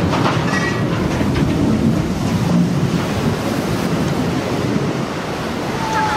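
Steady rushing and splashing of water thrown up as a ship's hull slides into the water at its launch.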